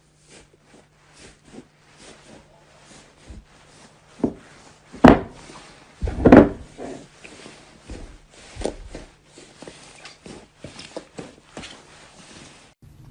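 Slime being squeezed and poked by hand: a run of small clicks and pops, with two louder squishes about five and six seconds in.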